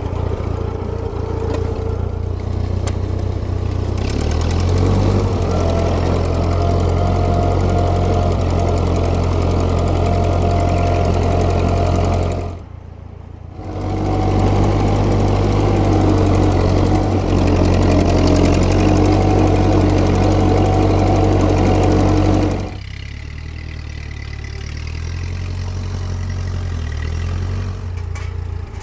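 Old tractor's engine running steadily. It picks up speed about four seconds in, drops away for a moment near the middle, and settles to a slower, quieter idle for the last several seconds.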